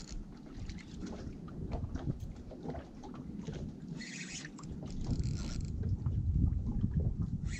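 Wind rumbling on the microphone and water lapping against the hull of a small boat, growing louder after about five seconds. Scattered small clicks come from handling a spinning reel and line, with a short hiss about four seconds in.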